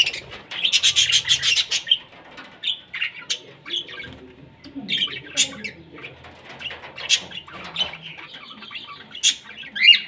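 Small caged parrots, budgerigars and lovebirds, chirping and chattering: a rapid run of high chirps in the first two seconds, then softer chatter broken by single sharp chirps.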